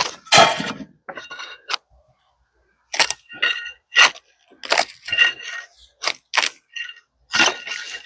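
A steel bark spud (an ice-chipper blade) jabbed against a log and pried under the bark to strip it. About a dozen irregular sharp strikes, several with a short metallic ring.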